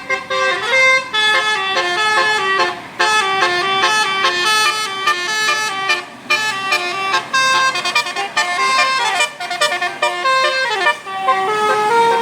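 Basuri telolet musical bus horn playing a fast tune of short stepped notes, with a couple of brief breaks and a few downward-sliding notes near the end.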